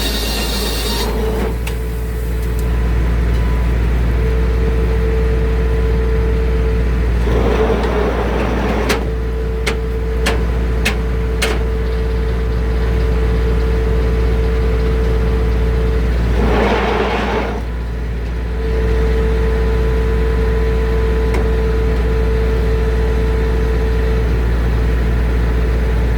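Circular sawmill running without cutting, its blade spinning free between cuts with a steady hum and a steady whine. Two short rushing noises, about seven and seventeen seconds in, and a few light clicks break in.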